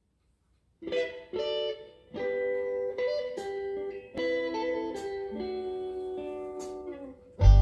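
Music played through Revel Performa3 F208 floor-standing hi-fi speakers in a room: a guitar picking slow, ringing notes, starting about a second in. Near the end the full track comes in much louder, with heavy deep bass from the SVS SB-3000 subwoofer.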